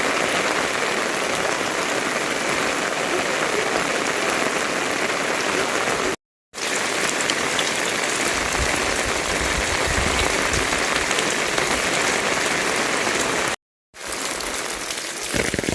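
Steady rain, a dense even hiss that cuts out completely twice for a moment.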